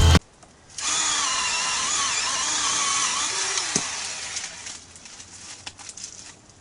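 Chainsaw running at high revs, its pitch wavering up and down as it works through wood, then fading away about four seconds in, leaving a few faint knocks.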